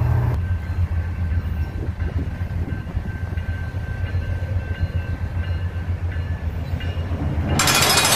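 Diesel freight locomotive running with a low, steady rumble as it approaches. Near the end comes a loud, harsh burst about a second long.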